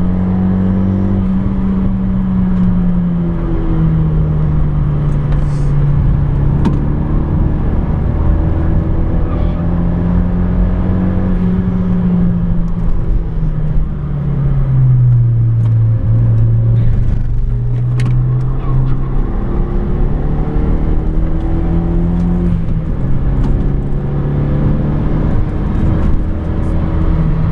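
Renault Megane 225's turbocharged four-cylinder engine, with an aftermarket Ktec exhaust, driven hard on track and heard from inside the car. The revs climb and fall in steps with the gear changes and braking, with the deepest drop about halfway through.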